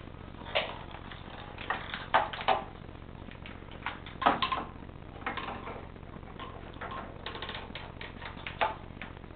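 Irregular sharp clicks and taps, some in quick pairs and runs, with the loudest about two and four seconds in: a cat's claws and paws scrabbling at a tiled floor and the base of a cabinet as it hunts for a mouse in the corner.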